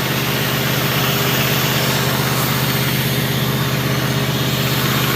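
Engine of a manhole vacuum-testing rig running steadily at idle, an even low hum.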